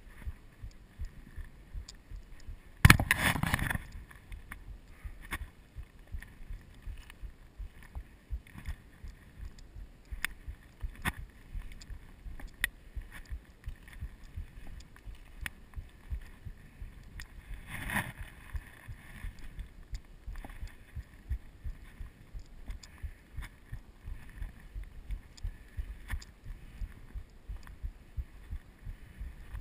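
Hiker's footsteps on dry grass, pine needles and rocky ground: a steady run of dull thuds and crunches about two a second, picked up by a body-worn camera. A brief loud rush of noise comes about three seconds in, and a smaller one about halfway.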